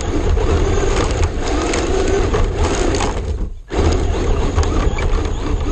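Traxxas RC car running and turning on wet, gritty pavement, heard from a camera mounted on the car: a dense rumbling rush of tyres, drivetrain and buffeting wind on the microphone, with scattered ticks of grit. The sound cuts out for a moment about three and a half seconds in, then resumes.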